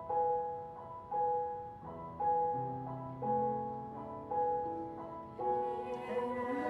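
Piano accompaniment playing a slow instrumental passage of separate notes, each struck and fading, with deeper bass notes joining about two seconds in. Choir voices come back in right at the end.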